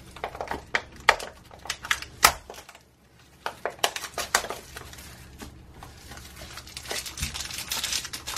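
Plastic and foil blind-bag wrappers crinkling and crackling as they are opened and handled, with sharp clicks among them. There is a brief lull about three seconds in, then denser crinkling near the end.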